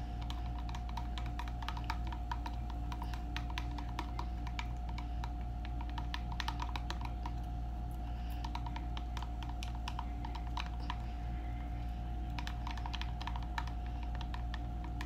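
Thin wooden stick clicking and scraping against the sides of a small plastic tub as melted soap is stirred briskly, a fast irregular clatter of light taps, over a steady hum.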